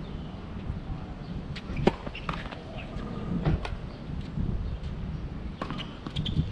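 Tennis balls being hit with rackets and bouncing on a hard court: a handful of sharp pops, the loudest about two seconds in and a cluster near the end, over a low rumble.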